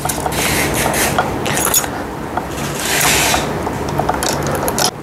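Handlebar being worked onto the stem of a children's tricycle and its screw tightened: a dense run of small clicks, scraping and rubbing of metal and plastic parts.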